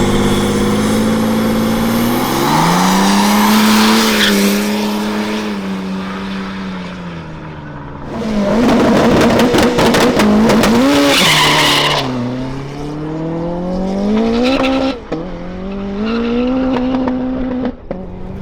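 V8 drag car's engine revving hard and held at high revs, its pitch rising and falling several times. About eight seconds in comes a louder stretch of about four seconds with tyre squeal.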